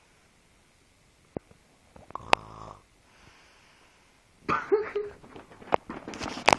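A sleeping person snoring: one rattling snore about two seconds in, with faint breathing before and after it. Over the last two seconds a jumble of loud knocks and rustling takes over.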